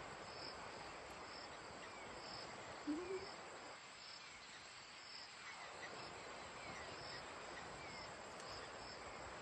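Insects chirping, a short high chirp about once a second, over a steady rushing hiss.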